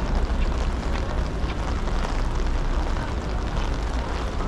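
Rain falling on wet, puddled paving: a steady hiss, with a continuous low rumble underneath.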